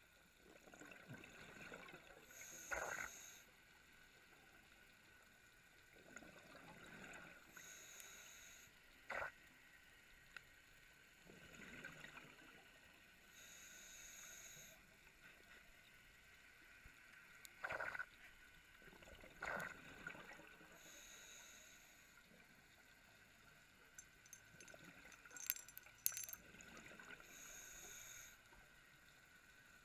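Scuba diver's regulator breathing heard underwater: five hissing inhalations about six seconds apart, with exhaled bubbles gurgling in between. A few sharp clicks stand out as the loudest sounds.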